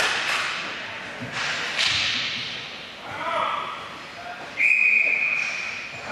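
A few sharp knocks from hockey play echo in the rink hall. About four and a half seconds in, a referee's whistle gives one long, loud blast, the signal that stops play.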